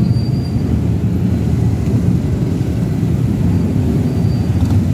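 Many motorcycle engines, mostly small step-through bikes, running at low speed as they move slowly past at walking pace; a steady, dense low rumble.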